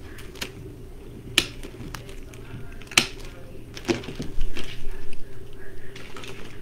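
Cutters snipping pieces off a greenery bush: four sharp clicks spread over several seconds, with some rustling handling in between.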